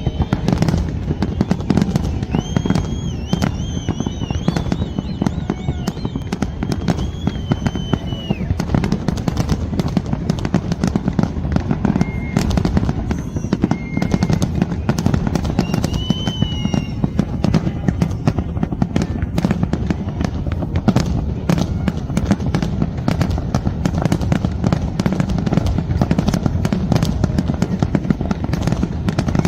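Fireworks going off in a continuous barrage: dense rapid crackling and popping over a steady low rumble of bursts. High wavering whistles are heard for the first several seconds and again briefly about halfway through.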